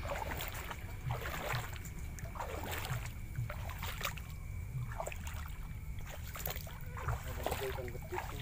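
Footsteps wading through shallow mangrove water, a splash with each step, coming irregularly about once a second.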